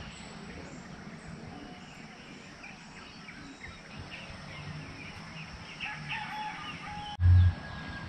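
A rooster crowing, with small birds chirping. A brief low thump comes near the end.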